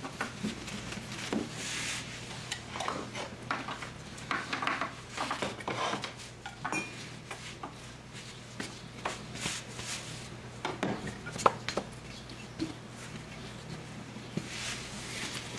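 Kitchen utensils and dishes clinking, knocking and scraping at irregular intervals during food preparation, over a low steady hum.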